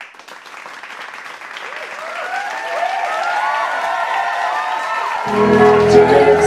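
Audience applause and cheering, fading in and growing louder. About five seconds in, a musical backing track starts with sustained low notes.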